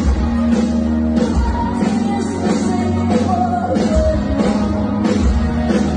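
Live rock music: a singer's voice over a band with heavy bass.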